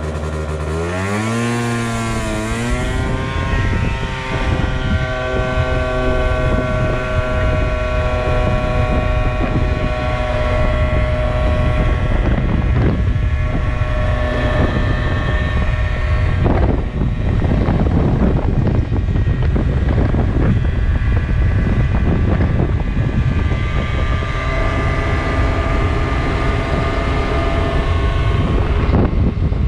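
Gilera Runner 50 scooter's 50 cc two-stroke single accelerating from a standstill: the engine note rises in pitch over the first few seconds, then holds a steady high drone while the automatic transmission carries the speed up. Wind buffets the microphone.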